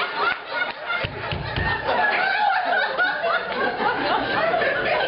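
Audience laughing and chuckling in a hall, mixed with a person's voice.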